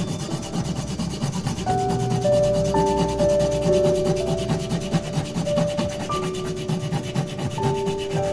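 A tool rasping steadily across wood in rapid, continuous strokes, with soft sustained musical notes underneath.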